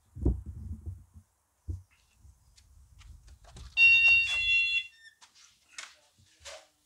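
A few low thumps, then an electronic beep about four seconds in that holds for about a second, followed by a couple of light clicks.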